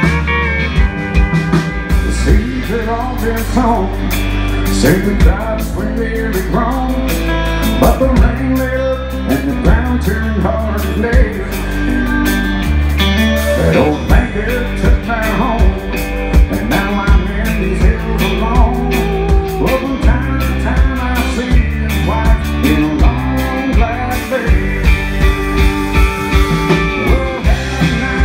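Live country-rock band playing loud: electric guitar lines bending in pitch over bass guitar and drums.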